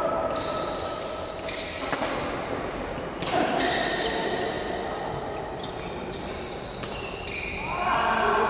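Badminton rally: a few sharp racket hits on the shuttlecock, with short high shoe squeaks on the court floor and players' voices near the start and end, echoing in a large hall.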